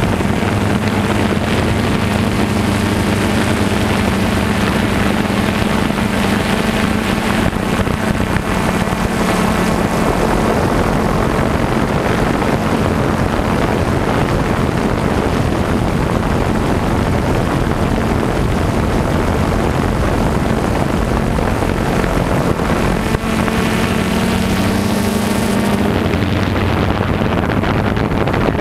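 A steady engine hum running under a constant rushing noise, fading out near the end.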